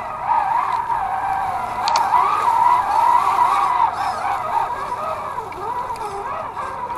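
Axial SCX10 II RC crawler's electric motor and drivetrain whining, heard onboard, rising and falling in pitch as the throttle is worked while the truck crawls over leaf litter and roots. The whine is loudest around the middle.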